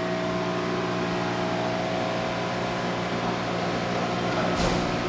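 Steady hum of a pump station's running electric machinery: several steady tones over a rushing noise, with a brief swell of noise near the end.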